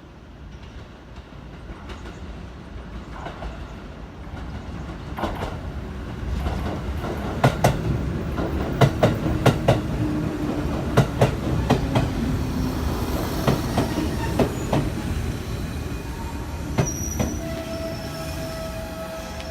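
JR Central 211 series electric train approaching and running past, growing louder. At its loudest the wheels clack over the rail joints in a quick run of clicks. Near the end there is a thin, steady wheel squeal as it draws away.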